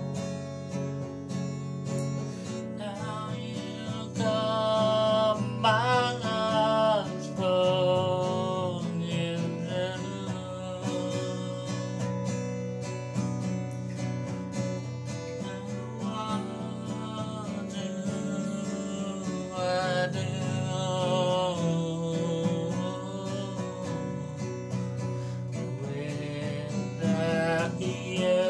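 A man singing his own song to his own acoustic guitar accompaniment, the voice coming in phrases while the guitar plays on steadily between them.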